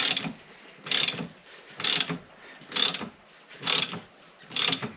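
Socket ratchet clicking in a short burst on each back-swing, about once a second, as it cranks the forcing screw of a ball joint press. The lower ball joint has broken free and is being driven out of the steering knuckle.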